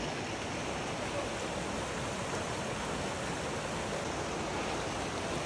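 Fast, shallow stream rushing over a rocky bed in small rapids: a steady, even rush of water.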